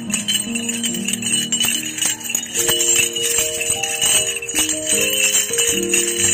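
Bells on the spinning flywheel of a sugarcane juice crusher jingling continuously, over music with held, stepping melody notes.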